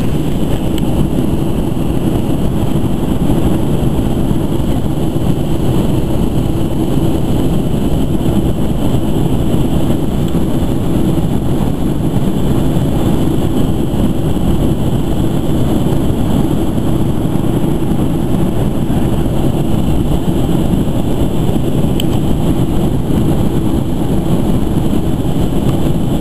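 Steady, dense cabin noise inside a Boeing 737-200 Advanced in flight: the rush of airflow and the low rumble of its Pratt & Whitney JT8D turbofans, unchanging throughout.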